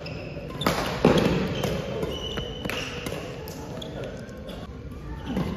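Badminton doubles rally on a wooden indoor court: rackets striking the shuttlecock in sharp clicks, and sneakers squeaking on the floor in short high squeals. The loudest moment comes about a second in.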